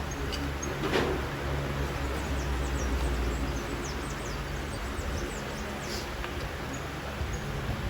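Honda Fan single-cylinder motorcycle engine running steadily with a low hum, the engine whose noise is being listened for. Faint high chirps or ticks sound over it throughout.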